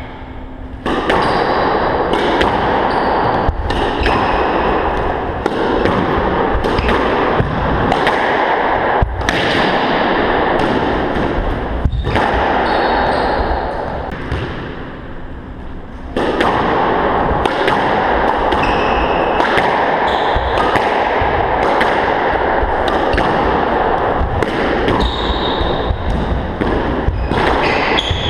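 Squash rallies: sharp cracks of the ball off the racquets and walls, and short squeaks of shoes on the wooden court floor, over a constant noisy din. The din drops away briefly about fourteen seconds in, between points.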